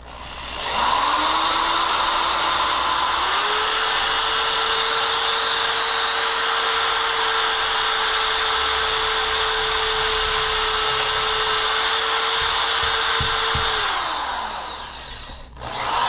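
Cordless drill running as it drills a mounting hole into the wall. Its motor whine spins up, rises to a higher speed about three seconds in, and holds steady for about ten seconds. It winds down near the end and starts up again just as it closes.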